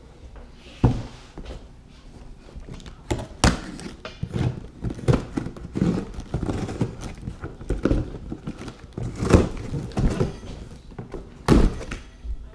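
A cardboard shipping box being cut and pulled open with a blade, with irregular scraping and rustling of cardboard and packing tape and several dull thunks against the box.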